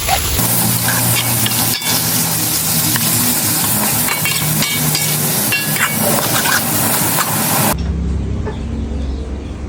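Food frying in a hot pan: a steady loud sizzle with small pops and crackles. Near the end it cuts abruptly to a duller low rumble.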